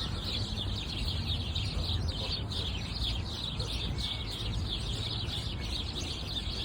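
A dense chorus of many small birds chirping and twittering at once, over a steady low rumble.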